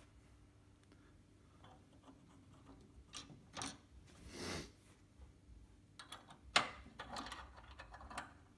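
Faint metal clicks and scrapes as nuts and washers are put by hand onto the bolts of a caster camber plate, with one sharper click about six and a half seconds in.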